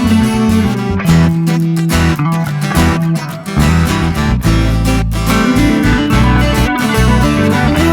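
Background music led by strummed guitar over a bass line.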